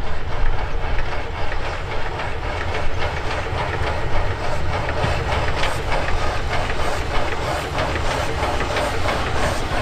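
1919 Krauss steam locomotive No. 92.2271 working a short train toward the listener, chuffing, with its wheels clattering on the rails. The beats grow more distinct in the second half.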